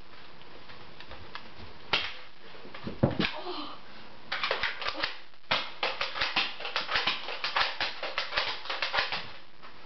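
A Nerf foam-dart blaster being worked and fired: a few single plastic clicks, then from about four seconds in a quick run of clacks at about five a second that stops near the end.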